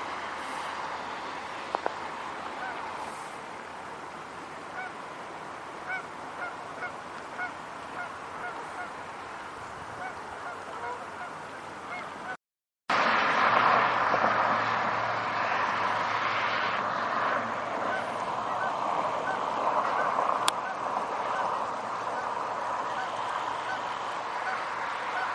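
Canada geese honking, a flock giving many short, repeated honks. About halfway through the sound cuts out briefly, then the honks go on over a louder, steady hiss.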